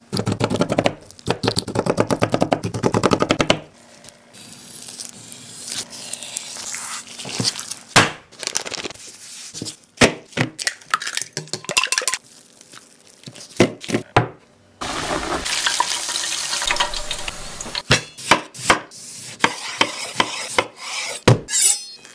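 Close-up food-preparation sounds: a fork rapidly pricking a raw chicken breast, then chopsticks beating egg in a glass bowl with sharp clicks against the glass. There is also a stretch of sizzling past the middle.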